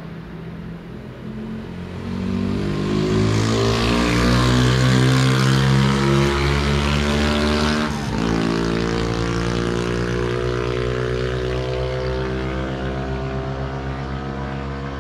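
A car driving past, its engine rising in pitch as it accelerates, with a gear change about eight seconds in, then running on more steadily and fading as it moves away.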